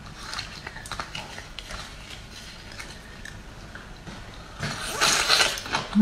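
Fibrous bamboo shoot sheaths being peeled off by hand: soft crackling and tearing, growing into a louder burst of tearing and rustling about five seconds in.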